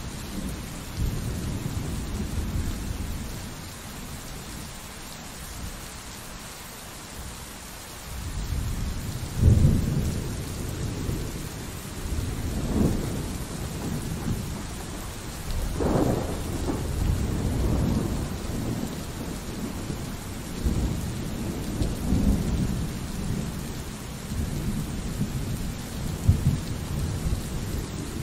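Steady pouring rain with rolling thunder. After a few quieter seconds, a thunderclap breaks about nine seconds in, followed by long rumbling peals that swell and fade several times.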